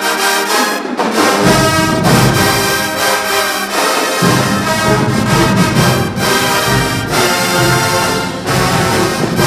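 Marching band brass playing loudly, trombones and trumpets among them. The low bass notes drop out twice in the first four seconds and then return.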